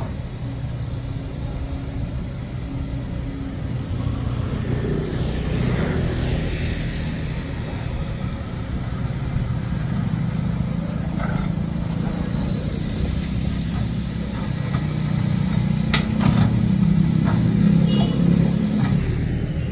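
Kobelco SK200 hydraulic excavator's diesel engine running steadily as the machine works, getting louder about three-quarters of the way through, with a few short sharp knocks near the end.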